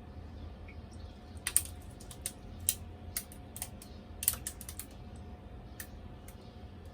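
Typing on a keyboard: about a dozen sharp key clicks at an irregular pace, over a faint steady hum.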